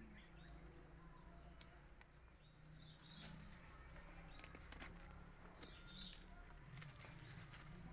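Near-silent outdoor quiet with light crackling rustles and clicks starting about three seconds in, from a baby macaque gripping and clambering down a banana leaf.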